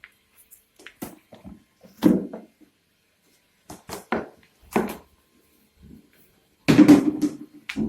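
Chiropractic adjustment: a scattered series of sharp knocks and thuds, the loudest about two seconds in and a longer, heavier one near the end.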